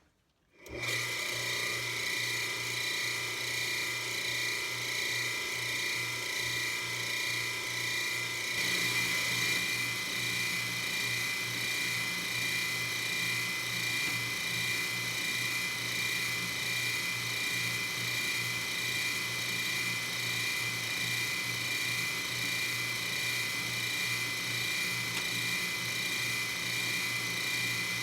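Metal lathe starting up about a second in and running steadily with a high whine, machining a new pulley nut. The sound shifts slightly about eight seconds in.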